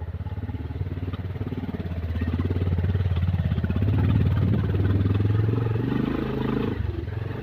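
Bajaj Pulsar 220F motorcycle's single-cylinder engine running, getting louder about two seconds in as it is revved or ridden harder, then easing off briefly near the end.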